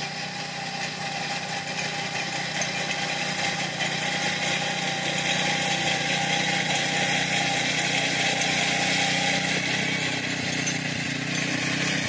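Small engine of a walk-behind rice reaper running steadily while it cuts standing rice. It grows louder over the first few seconds as the machine comes closer.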